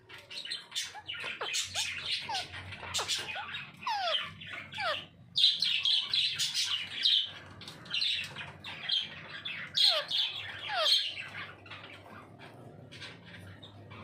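Plum-headed parakeets calling: a busy run of shrill squawks and chirps, some sliding down in pitch, thinning out over the last few seconds.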